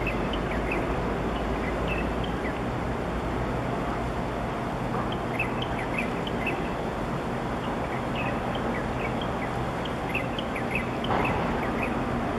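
Low steady drone of the container ship UNI-ARDENT's engine moving away, weakening about four seconds in, under an even hiss of wind and choppy water, with short high bird chirps scattered throughout.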